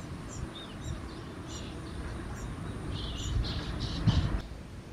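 Blue rock thrush fledglings' short high begging chirps, repeated about once or twice a second and coming faster for a moment near the end, as a parent brings them food.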